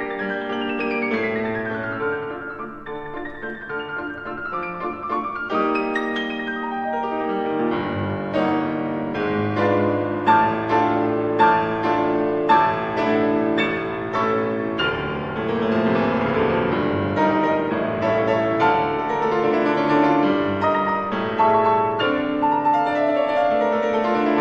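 Solo piano playing classical music: a falling run of notes in the first few seconds, then firmer struck chords, louder with sharp accents in the middle.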